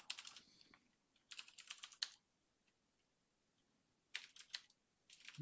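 Computer keyboard typing: quick runs of keystroke clicks, with a pause of about two seconds in the middle.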